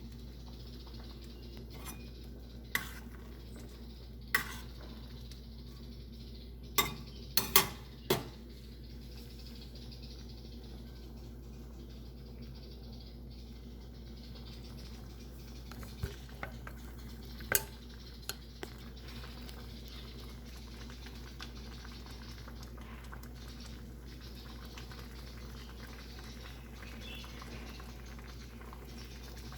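A spoon or ladle clinking against a cooking pot while rice porridge is stirred: single sharp knocks about 3 and 4.5 seconds in, a quick cluster around 7 to 8 seconds, and a few more near 16 to 18 seconds, over a steady low hiss from the pot and stove.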